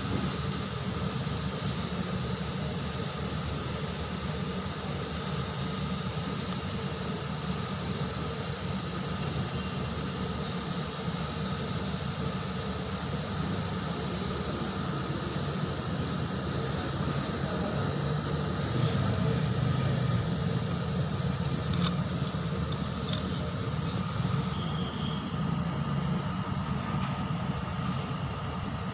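Hafele dishwasher running with a steady motor hum and rumble. It swells a little about two-thirds of the way through.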